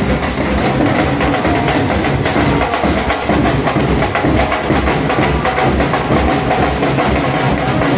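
Indian wedding brass band playing loud music over a steady, driving drum beat.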